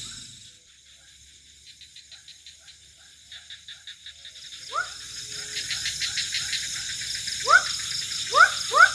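Night-time swamp animal chorus: a steady high insect hum, with rapid clicking calls that build up in loudness, and short rising calls, one about five seconds in and several in quick succession near the end.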